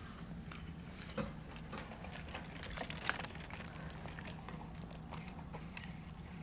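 Faint eating sounds: chewing and small mouth clicks and crunches, with slightly louder clicks about one and three seconds in, over a steady low hum.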